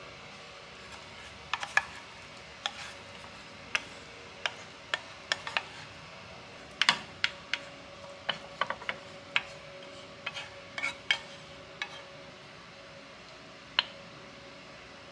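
Chopsticks and a pan edge tapping and scraping against a ceramic dish as cheesy corn is scraped into it: irregular light clicks, a couple of dozen in all, over a faint steady hum.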